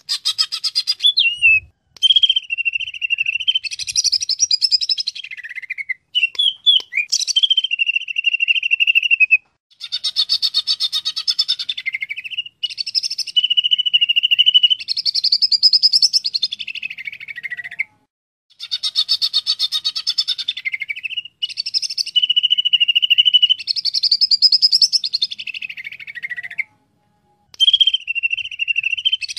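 Cucak ijo (greater green leafbird) singing loudly. Its phrases of rapid chattering notes alternate with a steady held whistle that slides down at its end. The same phrase pattern repeats about every eight or nine seconds, with short pauses between.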